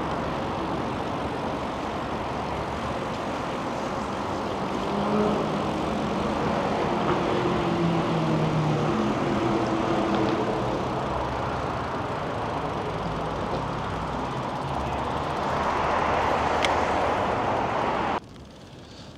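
Wind rushing over the microphone while riding fast downhill on a bicycle, a steady loud rush with a low engine drone rising through it for a few seconds midway. The rush cuts off suddenly near the end.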